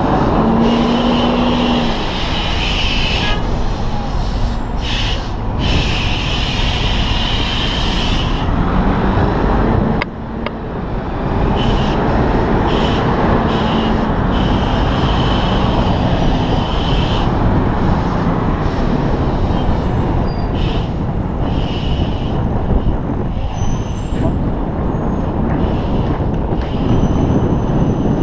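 Steady road traffic noise: motor vehicles running and passing close by, a continuous loud wash with a few faint engine tones.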